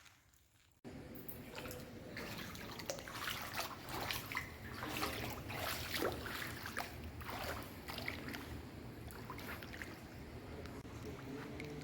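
Water sloshing and trickling in an underground cave lake, with irregular small splashes, starting about a second in.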